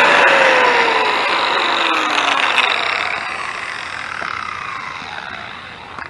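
Electric angle grinder winding down after being switched off, its whine falling in pitch and fading steadily over several seconds.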